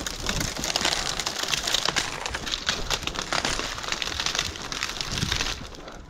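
Dry dead tree branches crackling and snapping as a cow and a horse crash through brush: a dense run of cracks that stops abruptly about five and a half seconds in.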